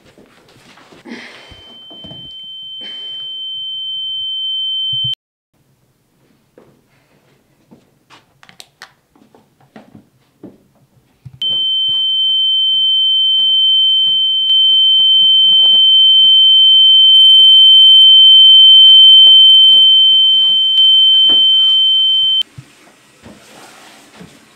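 A single high-pitched steady ringing tone. It swells for about four seconds and stops abruptly. After a pause it comes back much louder and holds for about eleven seconds before cutting off suddenly. Faint knocks and shuffles sit beneath it.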